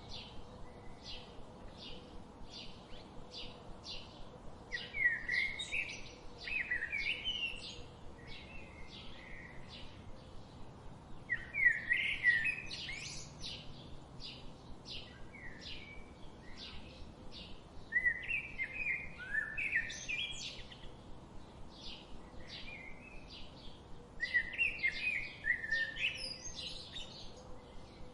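Songbirds chirping: a steady series of short, high chirps about twice a second, broken four times by a louder, warbling song phrase lasting two to three seconds.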